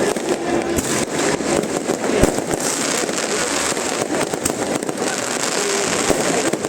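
New Year's fireworks going off: a rapid, irregular string of bangs and pops over a continuous din.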